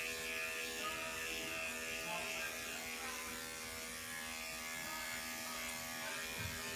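Electric dog grooming clippers fitted with a half-inch guide comb, running steadily as they clip up the leg of a small dog's coat.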